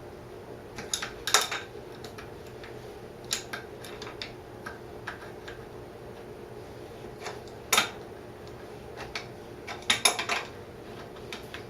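Metal hand tools clinking and clanking at irregular intervals as a wrench is worked on the rear axle nut of a Honda CL160 motorcycle. A steady low hum runs underneath.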